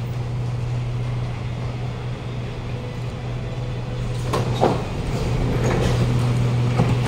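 Steady low hum of a stopped Kawasaki Nippon Sharyo C751B metro train at the platform. About four seconds in, the platform screen doors and train doors slide open with a short rush and a few clicks.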